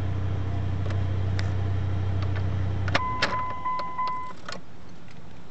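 1999 Dodge Ram 2500's 8.0-litre Magnum V10 idling steadily, then switched off with a click about three seconds in. A steady electronic warning chime then sounds from the dash for about a second.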